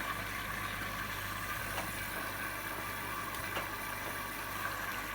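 Indesit My Time EWD81482S washing machine running early in its wash cycle while still filling with water: a steady, fairly quiet hiss over a low hum, with a couple of faint ticks.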